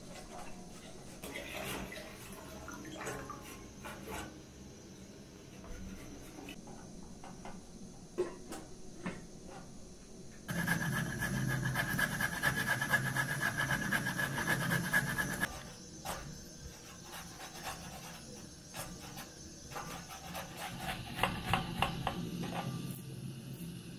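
Oil pouring from a plastic jug into a cooking pot. Then a peeled vegetable is rubbed fast on a metal box grater for about five seconds, a dense run of scraping strokes with a metallic ring and the loudest part. Near the end come light clicks and scrapes of a knife peeling garlic cloves.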